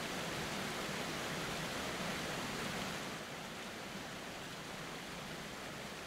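Steady rush of flowing water over rock, a creek or waterfall running. It drops slightly in level and loses some of its hiss about three seconds in.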